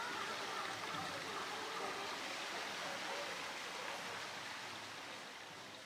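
A steady stream of water pouring from a pipe spout and splashing into a pool, a constant rushing splash that grows quieter near the end.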